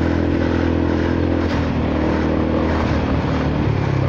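Honda Forza 300 scooter's single-cylinder engine and exhaust running steadily while riding, with a shift in the engine note about three and a half seconds in.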